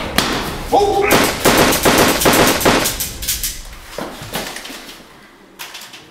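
Gunfire: a rapid run of shots from about one to three seconds in, like an automatic weapon firing, with a few single shots before and after as it dies away.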